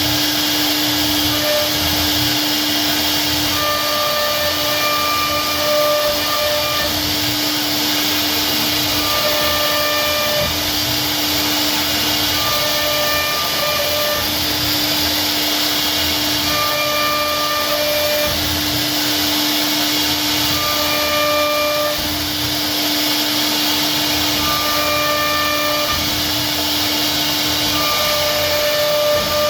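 CNC router cutting wood, its spindle and cutter making a loud, steady noise with a constant hum. A higher whine comes and goes every second or two as the machine moves.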